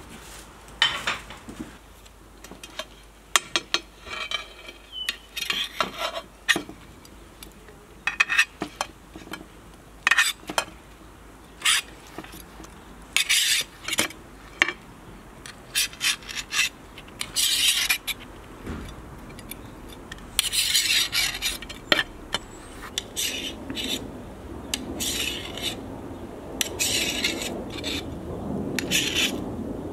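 A knife blade scraping along a steel shashlik skewer as grilled meat rounds are pushed off it into a dish: an irregular string of short metallic scrapes with a few longer drawn-out ones.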